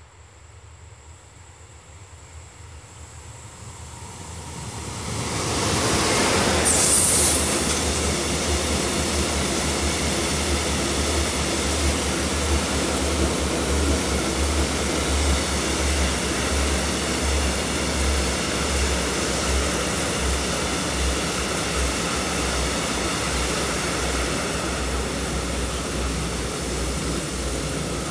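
Freight train approaching and passing close by: its sound grows over the first six seconds as the locomotive nears, with a brief high hiss as it goes past, then a long line of open wagons rolls by with a steady rumble of wheels on rails.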